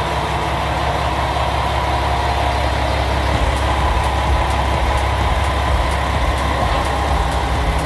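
Diesel engine of a KiHa 120 railcar idling steadily, the car standing at the platform with its doors open.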